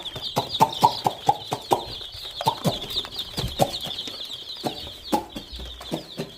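A flock of five-day-old broiler chicks in the brooding stage peeping continuously and high, over a run of sharp taps that come quickest in the first two seconds, then thin out.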